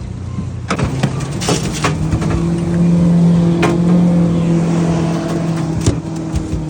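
A boat's outboard motor running at a steady pitch, getting louder about a second and a half in and easing off near the end, with scattered knocks and clicks.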